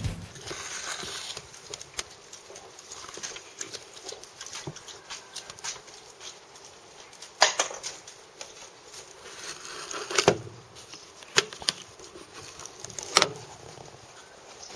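A dog's claws pattering and clicking on a hard floor, with four louder sharp knocks in the second half.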